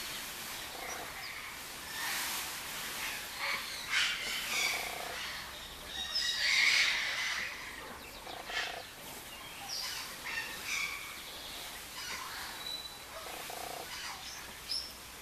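Peafowl calling: short calls come every second or two, the loudest about halfway through.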